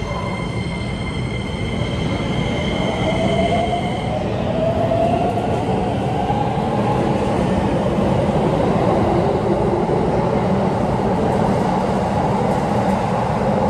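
Keikyu New 1000 series electric train accelerating away from the platform. Its VVVF inverter traction motors give a whine that rises in pitch over the first several seconds, over a steady rumble of wheels on rail. Two high steady tones stop about four seconds in.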